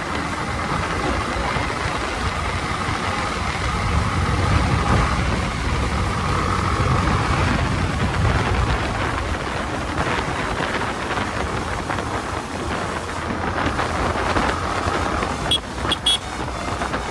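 Wind rushing over the microphone of a Yamaha MT-15 ridden at high speed, with its single-cylinder engine running steady underneath. A couple of short, sharp sounds come near the end.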